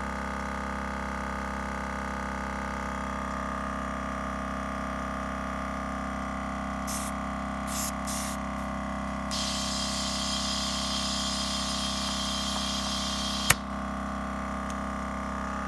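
Milwaukee M18 Fuel 2840-20 cordless air compressor running steadily with an even motor hum, refilling its 2-gallon tank. Midway there are a few short hisses of air, then a longer hiss of about four seconds that ends in a sharp click.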